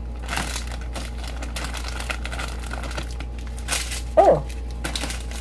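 Small plastic bags of diamond-painting drills crinkling irregularly as they are handled and sorted.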